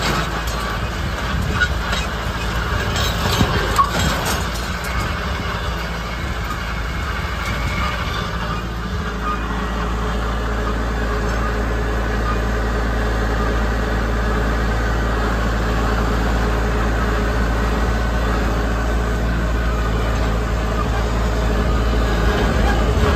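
Tractor engine running steadily under load at about 1650 rpm while pulling a 1st Products ND-60T Multi-drill through a planting pass, with a few rattles and knocks from the rig in the first few seconds.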